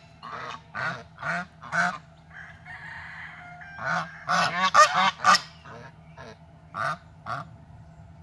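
Flock of domestic geese honking: repeated short honks in irregular bursts, a cluster early and another about four to five seconds in, with a few more before it trails off near the end.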